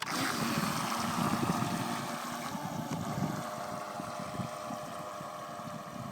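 A radio-controlled model boat's motor running at throttle, with the propeller churning the water. It starts suddenly and gets gradually fainter as the boat heads away.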